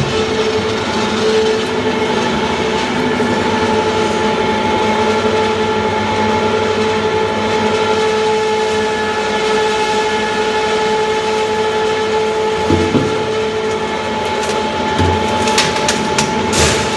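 FPE FG300 frozen block grinder running, a steady mechanical drone with a constant hum, and a few sharp knocks near the end.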